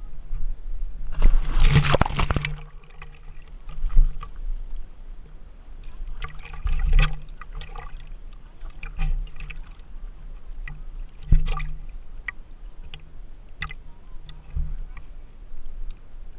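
A loud splash into the sea about a second in, then water sloshing and gurgling around the GoPro, with a few sharp knocks along the way.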